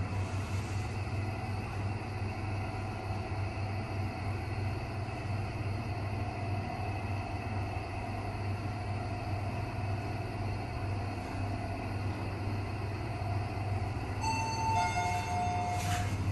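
Passenger lift car running with a steady low hum. Near the end comes a two-note descending chime, the lift's signal that it is arriving at a floor.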